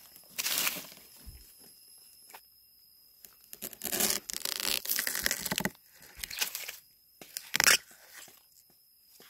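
Machete blade chopping and cutting into the base of a bamboo shoot, scraping through dry bamboo leaf litter and soil. It comes as a series of crunching, tearing strokes in clusters, with the sharpest stroke near the end as the shoot is cut loose.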